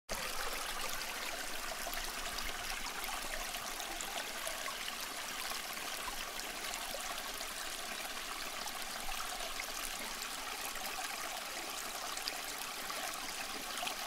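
Small bamboo tabletop fountain: water trickling steadily from the bamboo spout onto pebbles in the bowl.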